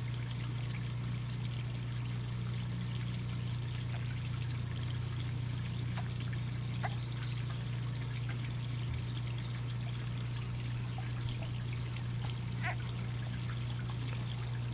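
Steady background noise with a constant low hum underneath, sounding like trickling water. A few faint ticks come about six, seven and twelve seconds in.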